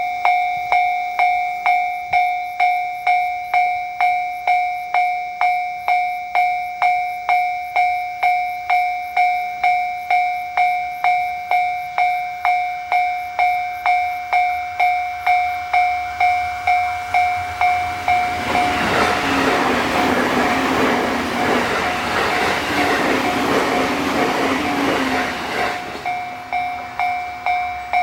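Japanese level crossing warning bell ringing steadily, about two strikes a second. About 18 seconds in, a JR East E257 series 500 limited express train passes over the crossing for about seven seconds, its running noise covering the bell, which keeps ringing after the train has gone.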